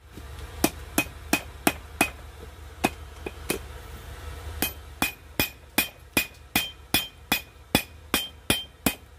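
Hand hammer forging a hot coil-spring steel knife blade on an anvil: sharp ringing blows at nearly three a second, in two short runs, then after a pause about four seconds in a steady run of about a dozen blows until near the end. A steady low hum runs underneath.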